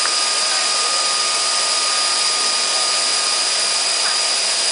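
Vertical machining center running: a steady hiss with a constant high-pitched whine.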